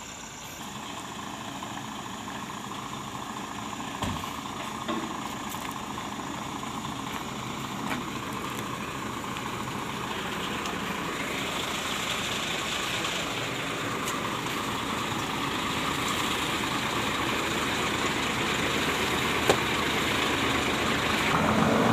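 Heavy diesel truck engines idling, the sound growing gradually louder, with a few faint knocks and one sharp click near the end.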